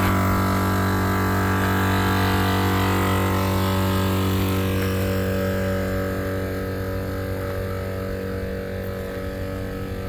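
A 12-volt Morrflate 10.6 Pro air compressor running steadily with a constant hum while it inflates four tires together through a common manifold; the hiss and level ease slightly over the last few seconds.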